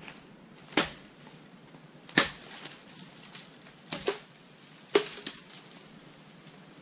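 Four sharp strikes of a machete chopping into a bamboo stalk, irregularly spaced, the second the loudest.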